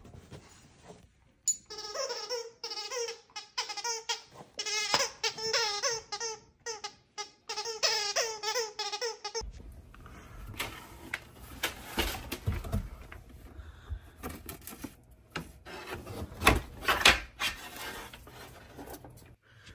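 A dog whining in a string of high, wavering calls for about eight seconds. The calls stop abruptly and give way to scattered clicks and knocks of handling.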